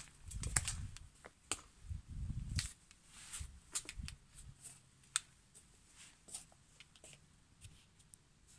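Footsteps with low thuds, stopping after about three seconds, then scattered faint clicks and taps.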